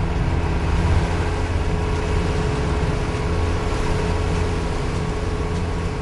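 Motorboat engine running steadily at speed, with the rush of water along the hull and wake.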